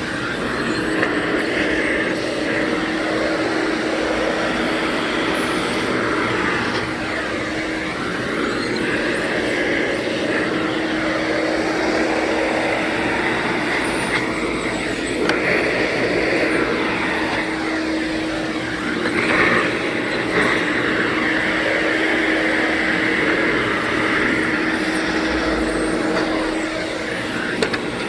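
Vacuum cleaner running continuously while it is pushed over carpeted stair treads: a steady motor hum under a rushing suction noise that swells and fades as the nozzle moves across each step.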